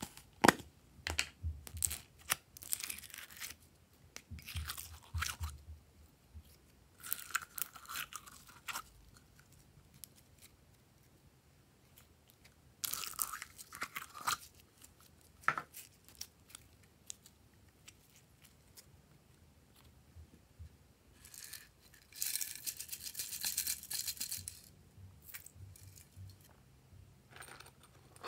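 A plastic tub of slime is opened with a sharp click, then the slime is pulled and squeezed out of it by hand in short sticky crackling bursts. A longer, steady rasping sound comes about three quarters of the way through.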